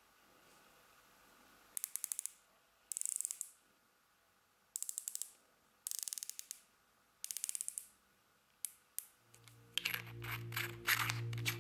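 Hawke Endurance 30 riflescope turrets turned by hand, clicking through their detents at a quarter inch per click, in five quick runs of several clicks each with short pauses between. Background music comes in near the end.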